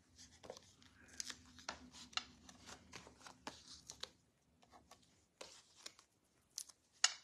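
Faint paper-handling sounds: scattered soft clicks, ticks and brief rustles as foam adhesive dimensionals are peeled from their sheet and pressed onto a cardstock panel.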